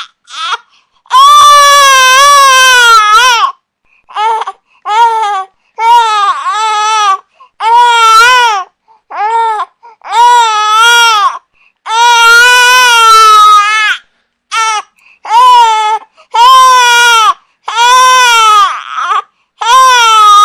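Infant crying: about a dozen wailing cries, each from half a second to two seconds long, with short silent gaps between them and the pitch rising and falling within each cry.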